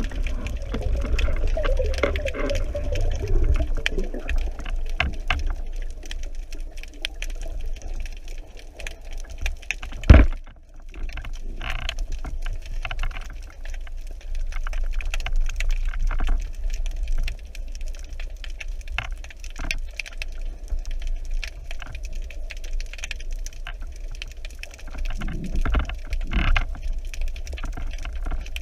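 Underwater ambience picked up through a camera housing: a steady low water rumble with scattered crackling clicks throughout, and one sharp, loud knock about ten seconds in.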